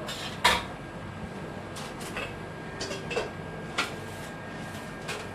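Kitchen clatter: a loud knock about half a second in, then several lighter clicks and knocks, like pots and utensils being handled.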